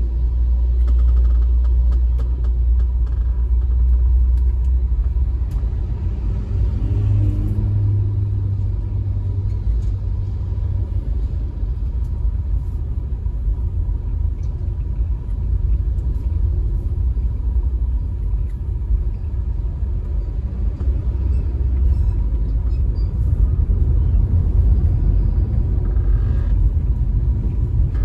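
Steady low rumble of a car driving in slow traffic: engine and tyre-on-road noise.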